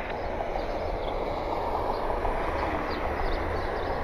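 Jet airliner engines giving a steady rushing roar that grows a little louder toward the end.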